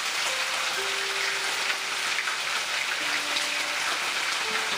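Marinated beef pieces sizzling and crackling steadily in very hot vegetable oil in a wok-style pan on high heat: the oil is hot enough for the meat to sear.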